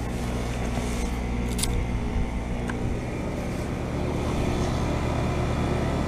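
Outdoor heat pump units running: a steady low compressor hum with several even tones. One unit, a Carrier Comfort heat pump, is in its defrost cycle, under the running noise of a neighbouring outdoor unit.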